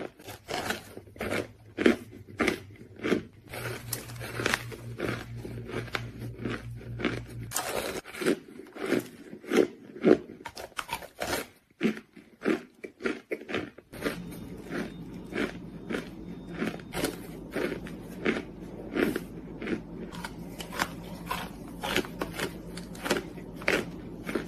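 Biting and chewing of crunchy, chalky white material such as baked cornstarch, chalk or clay: crisp crunches about one to two a second, over a low steady hum that changes twice.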